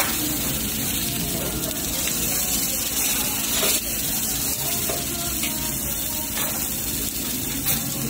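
Beef steak sizzling on a round tabletop barbecue grill, a steady hiss, with a few sharp metal clicks of tongs on the grill plate.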